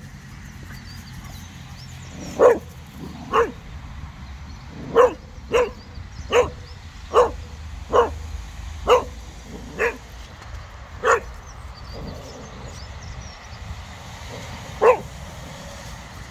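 Cocker spaniel barking at a snowman: about ten sharp single barks roughly a second apart, then one more after a pause of a few seconds.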